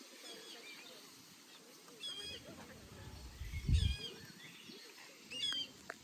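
Bird calls: short, pitched calls repeating about every one and a half seconds. A brief low rumble comes about midway.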